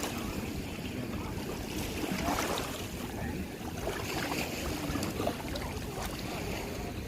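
Sea surf washing on a beach, with wind rumbling on the microphone and a few faint distant voices about two seconds in.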